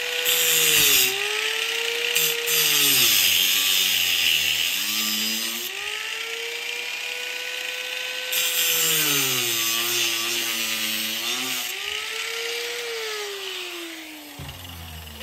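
Corded Ryobi angle grinder cutting into the heel of a plastic ski boot to take off its pivot rivets, with a hissing grind while the disc is in contact. The motor's whine sags in pitch each time the disc bites under load and climbs back as it eases off. Near the end it is switched off and winds down with a falling whine.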